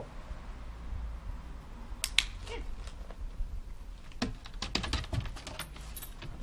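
A dog's claws clicking and tapping on wooden decking as it gets up and moves, in a quick run of taps over the last couple of seconds, with one sharper single click about two seconds in.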